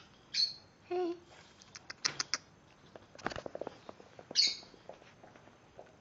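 Maltese puppies making short high squeaks and a falling whimper, with light tapping and scrabbling in between.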